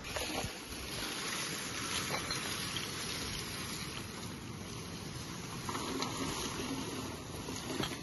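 Dry dead branches being dragged and broken over gravelly, leaf-strewn ground: a steady rustling scrape with a few faint cracks.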